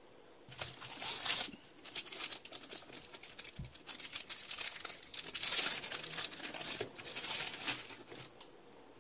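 Clear plastic packaging bags crinkling as they are handled and pulled out, in irregular bursts that start about half a second in and die away near the end.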